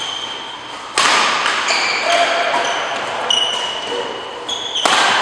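Badminton rally: rackets striking the shuttlecock with sharp cracks, two loud hits about a second in and near the end, echoing in the hall, amid short high-pitched squeaks of court shoes on the court floor.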